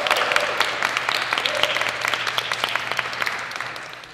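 A crowd applauding with many hands clapping, fading out near the end.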